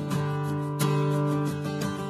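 Background music with a strummed acoustic guitar playing sustained chords.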